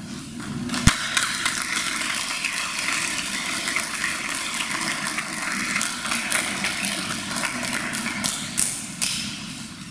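Audience clapping: a dense patter of many hands that starts with a sharp thump about a second in and fades out near the end.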